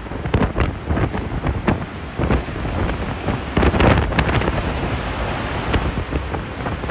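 Tornado wind blowing hard across the phone's microphone, with repeated bangs and clatter of flying debris striking things.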